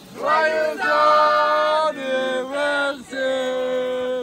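Voices singing or chanting in long held notes, three phrases with short breaks between them.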